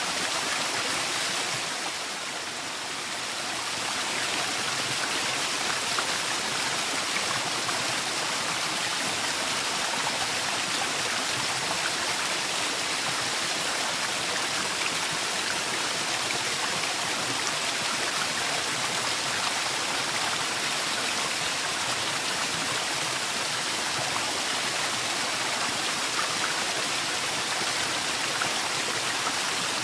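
Waterfall rushing steadily: a continuous, even hiss of falling and splashing water, dipping slightly in loudness for a moment about two seconds in.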